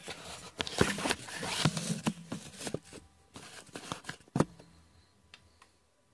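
Handling noise: a Hella circuit board being moved and turned over on loose paper, rustling and scraping with scattered clicks and one sharp knock about four seconds in, then dying away.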